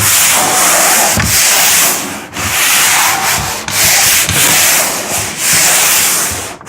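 Sandpaper rubbed by hand over a painted wall in loud, scratchy back-and-forth strokes with a brief break partway through. This is sanding to take the shine off the old paint so the new coat will stick.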